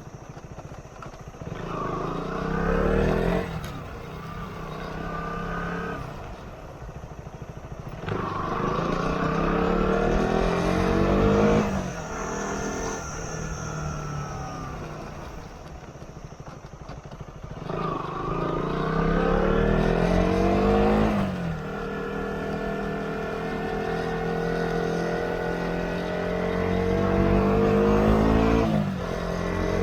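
Motorcycle engine running on the move, climbing in pitch four times, each rise ending in a sharp drop, with steadier running in between.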